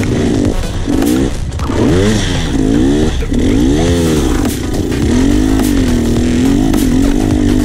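Enduro dirt bike engine revving up and down repeatedly while riding, then holding a steadier, lower pitch over the last couple of seconds.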